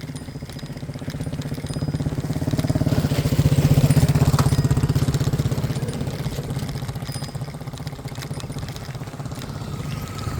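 A motor vehicle's engine running, growing louder to a peak about four seconds in, then fading as it passes.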